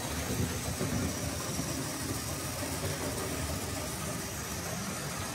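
Tri-ang Hornby OO-gauge Britannia locomotive with a tender-drive motor running with a long train of ferry wagons: a steady motor hum under the clatter of the wheels on the track.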